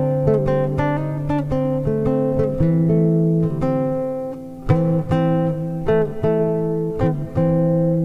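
Background music: acoustic guitar playing a run of plucked notes over a held low note. The level dips briefly a little past halfway, then a sharply struck note comes in.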